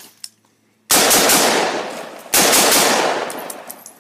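Rifle firing two long bursts of rapid automatic fire, the first starting about a second in and the second right after it, each tapering off.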